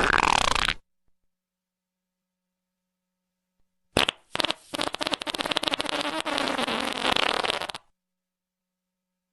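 Two fart sounds: a short one lasting under a second, then after a pause of about three seconds a long sputtering one lasting nearly four seconds, broken into many rapid pops.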